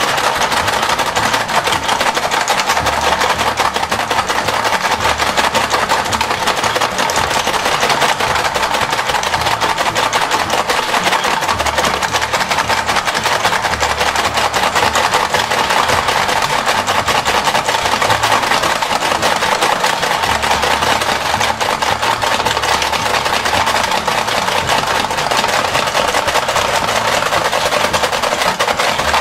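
Motorized toy ball-racing game running: a small motor whirring under a rapid, continuous plastic clatter as the balls are churned and gathered.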